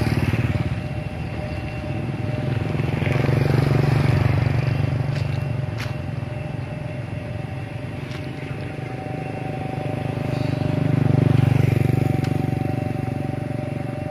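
Small motorcycle engines running as motorbikes pass along a narrow road, the sound swelling and fading twice, loudest about four seconds in and again about eleven seconds in.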